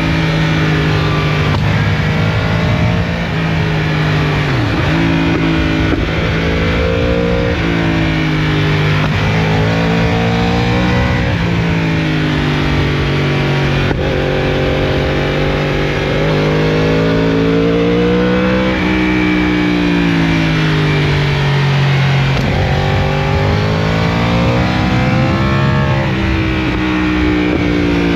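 Yamaha R1's crossplane inline-four through an Akrapovic full-system exhaust, heard onboard while riding: a loud, continuous engine note that climbs and falls back in pitch several times as the bike accelerates and eases off.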